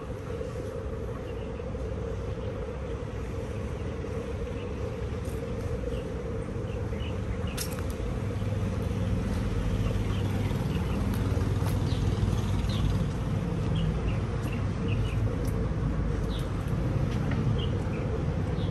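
Outdoor city street ambience: a steady traffic rumble that grows louder about halfway through, under a steady high insect hum and scattered short high chirps.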